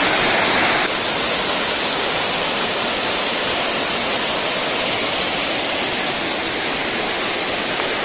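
Waterfall: the loud, steady rush of falling water, dipping slightly about a second in.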